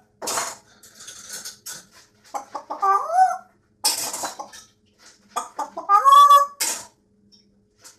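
Chicken clucking: twice, a quick run of short clucks ends in a longer drawn-out call, with short hissy bursts between the runs.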